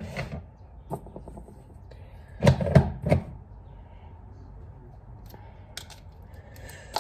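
An egg being cracked over a bowl: a short cluster of knocks as the shell is struck, about two and a half seconds in, then faint small crackles near the end as the shell is pulled apart by hand.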